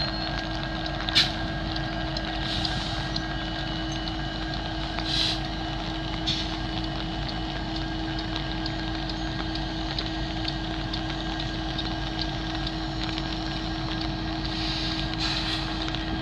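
Diesel-electric freight locomotives running at low throttle while creeping forward, a steady engine rumble with a constant hum. A few brief sharp clicks stand out about a second in and again around five and six seconds in.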